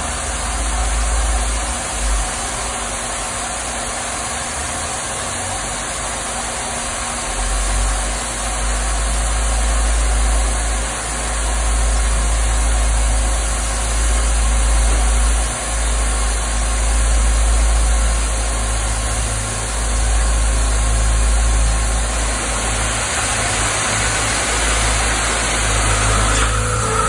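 Peddinghaus ABCM-1250 beam coper's cutting torch burning through a steel channel: a steady hiss over a low machine rumble that swells and dips. A higher steady tone sets in right at the end.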